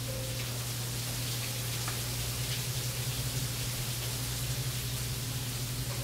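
The piece's recorded nature soundtrack playing into the room: a steady rain-like hiss with a low hum beneath, before any singing.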